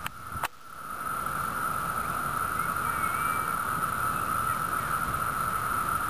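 Chorus of Brood II periodical cicadas (Magicicada): a steady, high, ringing drone, their mating song. Two clicks and a brief drop in level come just after the start.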